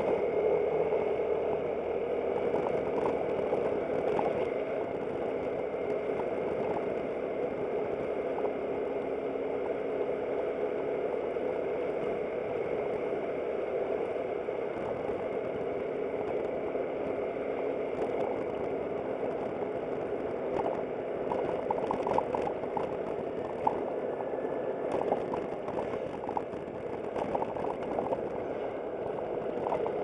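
Aprilia SportCity scooter's engine running steadily while riding along, with a few short clicks and rattles in the latter part.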